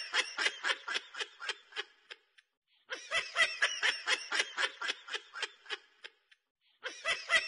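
A person snickering in rapid laughing bursts, about four or five a second, in three stretches of a few seconds each with short silences between; the stretches look alike, as if one laugh clip is repeated.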